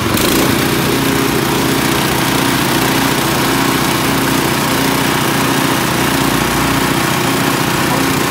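Small petrol engine on a grass chopper running steadily at full throttle, turning the belt-driven chopper rotor empty with nothing being fed. It picks up to speed just at the start, after its throttle is opened fully.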